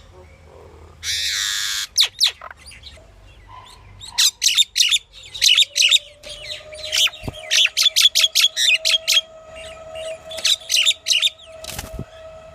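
Pied myna calling: a harsh, rasping screech about a second in, then a long run of short, sharp, high notes in quick succession.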